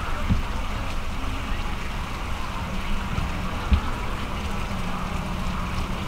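Steady outdoor background noise with a low rumble, broken by a couple of dull low thumps.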